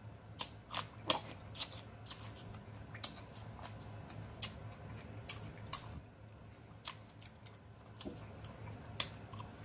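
Close-miked eating sounds: irregular sharp wet clicks from lip-smacking and chewing, a few to the second at most, over a faint low steady hum.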